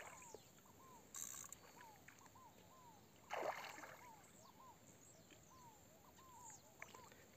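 Near silence broken by a hooked tambatinga fish splashing briefly at the water surface about three and a half seconds in, with a string of faint short chirps behind.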